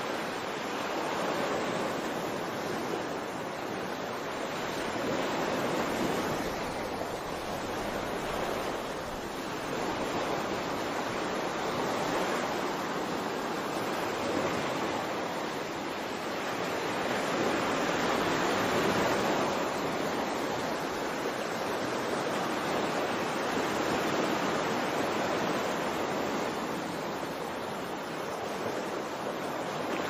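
Ocean surf: a steady rushing wash of waves that swells and eases every few seconds, with no single sharp crash.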